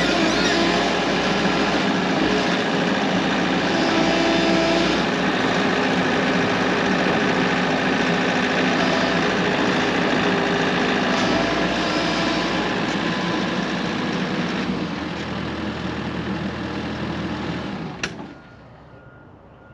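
Bobcat Toolcat utility machine's diesel engine running under load while its front attachment digs a post hole in the soil. The engine note changes about 15 seconds in, and the sound cuts off sharply about 18 seconds in.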